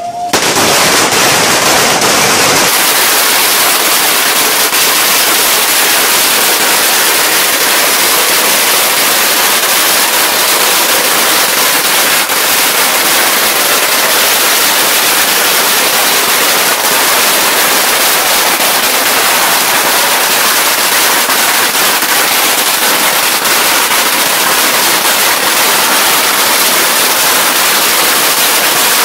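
A long hanging string of Chinese firecrackers going off in one continuous, dense, rapid crackle that starts abruptly and stays steady and loud throughout.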